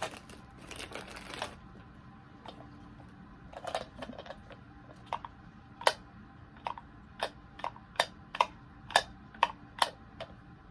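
Plastic packaging crinkling as it is torn open, then a run of about a dozen sharp plastic clicks and taps, a second or less apart, as the Jumping Mario Happy Meal toy, a pop-up jack-in-the-box-style figure, is handled.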